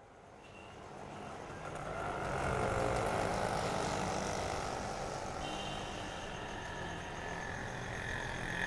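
Road traffic ambience fading in from silence: a steady wash of passing vehicles, with thin held high tones joining about five and a half seconds in.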